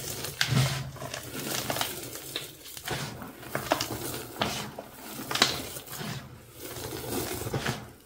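Rubber-gloved hands squeezing and crumbling pressed, dyed gym chalk: repeated soft crunches with sharp crackles as the clumps break, and dry powder sifting down into a plastic tub.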